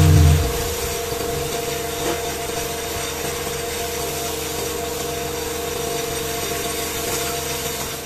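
Gravity-feed air spray gun spraying paint in a steady hiss, with a steady hum underneath.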